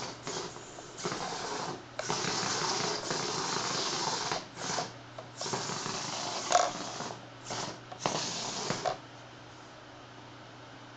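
A small remote-controlled robot, running on a 180 mAh 7.4 V LiPo, whirs its electric motors in on-off bursts as it drives and turns on a laminate floor, with a sharp knock about six and a half seconds in. The motors stop about nine seconds in, leaving a faint hum.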